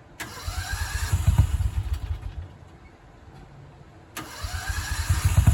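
A vehicle engine is cranked by its starter twice. The first try, a couple of seconds of fast chugging under a rising starter whine, does not catch. The second, about four seconds in, catches near the end and settles into running.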